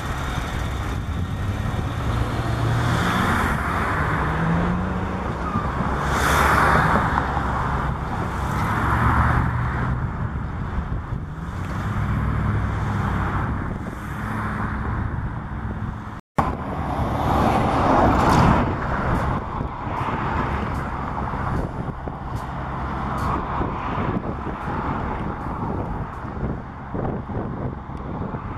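Freight train moving past: diesel locomotive engines running under the rumble of railcar wheels on the rails. The sound cuts out for a moment about halfway, and there is a run of sharp clicks near the end.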